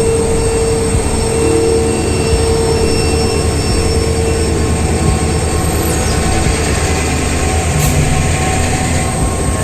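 Train running on the rails: a loud, steady rumble with a thin whine that fades after about two seconds.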